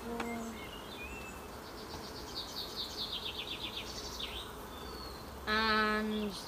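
Honeybees buzzing around an opened hive: a steady buzz at the start, then a louder buzz of a bee close by for about a second near the end. A bird trills quickly in the background in the middle.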